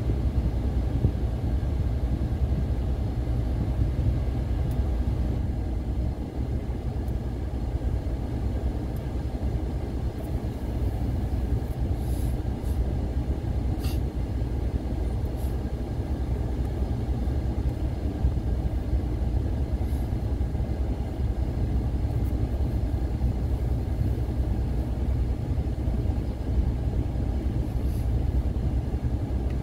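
Car driving along a road: a steady low rumble of engine and tyre noise, with a few faint clicks about halfway through.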